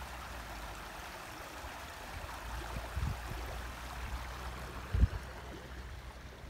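Steady rush of running water, with low thumps of wind on the microphone about three and five seconds in, the second one the loudest.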